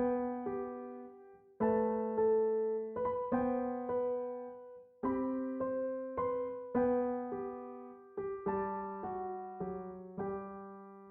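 Background music: a slow, gentle piano melody of single notes and soft chords, each struck and left to ring out, fading away near the end.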